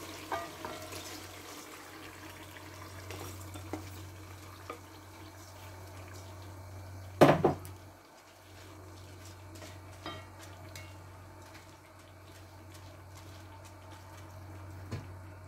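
Washed rice poured into a granite-coated pot, then spread and levelled with a plastic slotted spatula: soft rustling of grains and light clicks of the spatula against the pot. There is one loud knock about seven seconds in.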